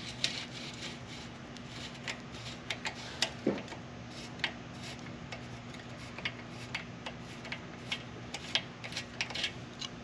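Light, irregular metal clicks and ticks of a 5 mm Allen key turning and reseating in the chain tensioner bolt as the bolt is unscrewed, over a faint steady hum.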